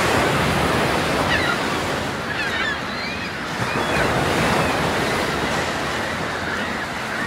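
Sea waves and wind making a steady rushing wash, with many short calls of seabirds throughout.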